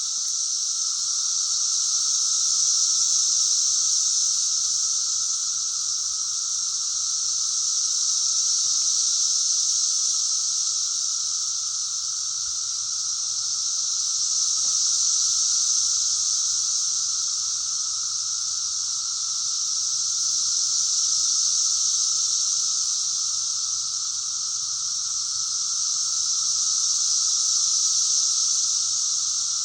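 Dense chorus of Brood XIV 17-year periodical cicadas: a loud, high, shrill hiss over a lower steady drone, swelling and fading in slow waves about every six seconds.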